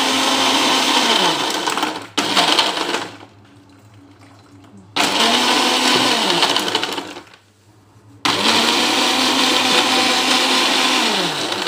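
Philips countertop blender blending mango with water and sugar, switched on and off in four short runs. Each run is a steady motor whine that winds down with a falling hum when it stops.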